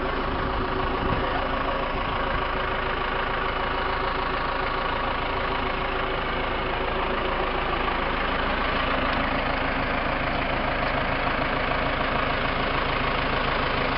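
2003 Case 580M loader/backhoe's diesel engine idling steadily.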